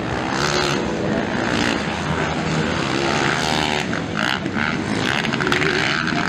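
Several motocross dirt bike engines revving hard as the bikes race around the track, their pitch rising and falling with the throttle.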